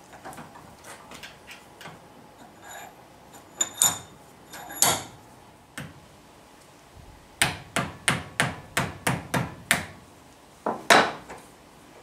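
Soft-faced mallet tapping a steel snap-ring installation tool held in a bench vise, driving the snap ring onto a BMW gearbox input shaft. Light metal clicks of parts being handled, then two sharp blows, then a run of about eight quick taps at roughly three a second, and two more near the end.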